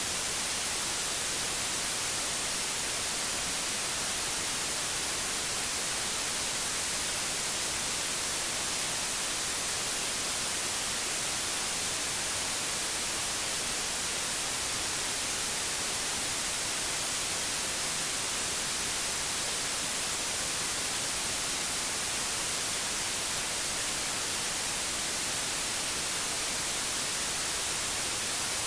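Steady white noise: an even hiss, strongest in the treble, with no change in level.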